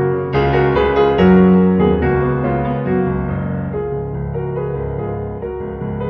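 Background piano music: a melody of piano notes over sustained lower notes, easing slightly softer over the last few seconds.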